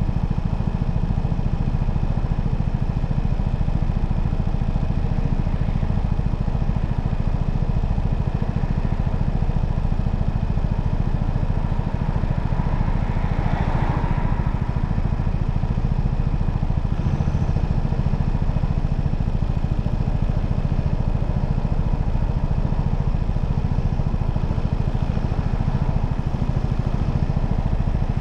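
Motorcycle on the move, heard from the bike: the engine running under a steady, heavy low rumble, with a brief sound swelling and fading about halfway through.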